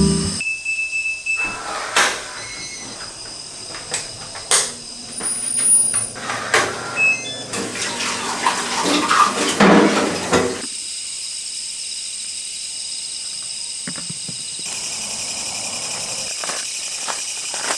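Washing up at a stainless steel sink: dishes and a pan clinking and knocking, then tap water running hard for a few seconds. After that a quiet steady background, with a few clicks near the end.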